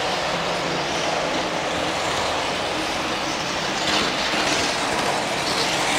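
Märklin model train running along its track, a steady rolling clatter that grows a little louder and brighter about two thirds of the way through as the train comes closer.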